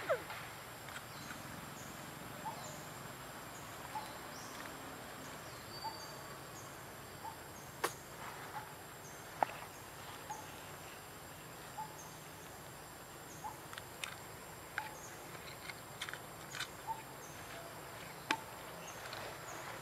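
Outdoor forest ambience: a steady hiss with a faint short chirp repeating about every one and a half seconds, and a few scattered sharp clicks.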